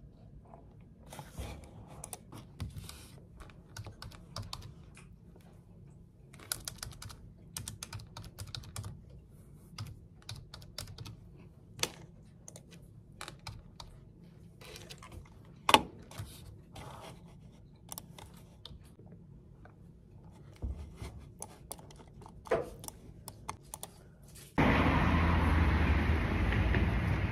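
Typing on a computer keyboard: irregular key clicks, with one sharper tap a little past halfway. About 25 seconds in, it cuts suddenly to loud steady wind noise on the microphone and street traffic.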